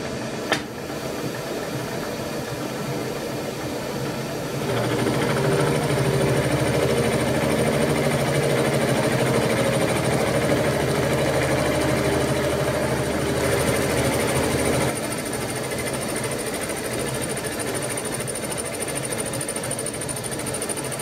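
Bridgeport-style milling machine running with an insert face mill taking a light finishing pass of about 0.13 mm across a metal block. The cutting grows louder for about ten seconds in the middle while the cutter is in the work, then drops back to the machine running as the cutter clears the block. A single click sounds about half a second in.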